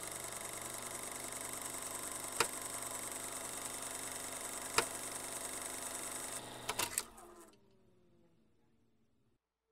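Old film projector running with a steady hiss and hum and two sharp clicks, then a burst of clicks about seven seconds in as it winds down, its pitch falling as it fades out.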